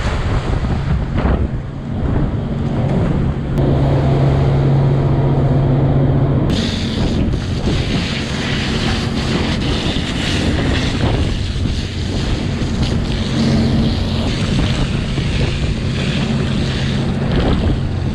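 Fishing boat's engine running with a steady hum under the hiss and splash of a deck hose spraying water across the deck, the spray growing louder from about six seconds in.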